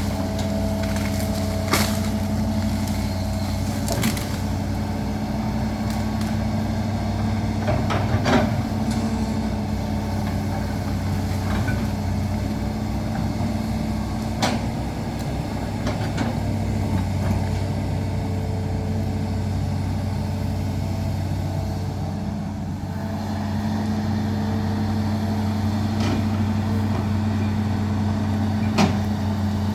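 Large excavator's diesel engine running steadily, with a few sharp clanks scattered through.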